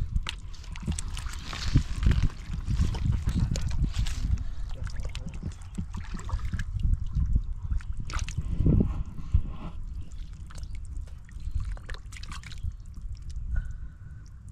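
Hands groping through shallow muddy water and mud, with irregular sloshing, squelching and small splashes over a steady low rumble.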